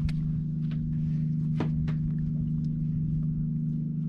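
Boat engine running with a steady low hum, with a few short knocks about the deck.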